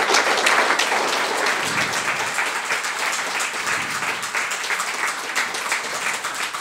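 Audience applauding, a dense patter of many hands clapping, loudest at the start and easing off slightly.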